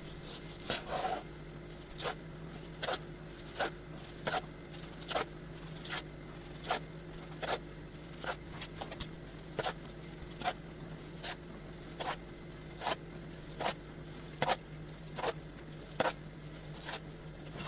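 Chef's knife slicing a partly frozen pork loin on a bamboo cutting board: a short sharp scrape as each slice is cut through to the board, one roughly every 0.8 s, with a faint steady hum underneath.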